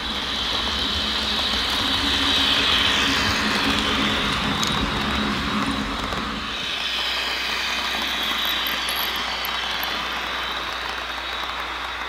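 HO-scale Atlas AEM-7 electric locomotive model running with its passenger cars. It makes a steady hum and hiss from its DCC sound decoder and its wheels rolling on the rails. The sound swells as the train passes close, about two to three seconds in, then runs on steadily.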